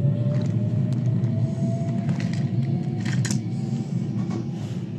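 Wooden toy subway car rolled by hand along wooden track, its wheels making a steady low rumble, with a faint tone slowly rising in pitch and a few light clicks, one sharper about three seconds in.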